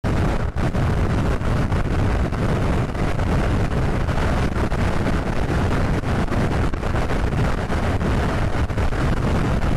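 Steady wind buffeting and rumble on the microphone of a handlebar camera on a Suzuki Burgman Street 125 scooter cruising at about 87 km/h.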